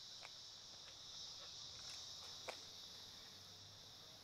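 Near silence with a faint steady high insect trill, like crickets, and a few soft clicks, the clearest about two and a half seconds in.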